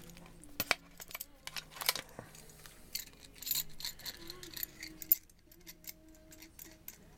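Light, irregular metallic clicks and taps as a G-clamp is fitted onto a small metal tobacco tin, with a sharper click now and then.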